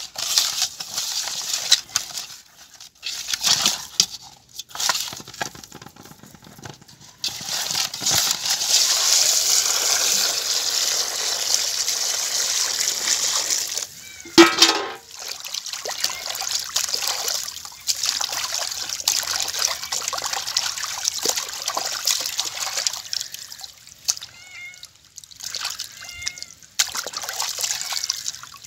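Hands rub turmeric- and salt-coated tilapia in a steel basin. Water then pours steadily into the basin for several seconds, and the fish are sloshed and scrubbed in the water. About halfway through comes one brief, loud, sharp sound.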